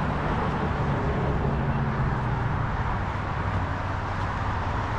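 Road traffic: a motor vehicle's low engine hum over a steady rush of tyre and road noise.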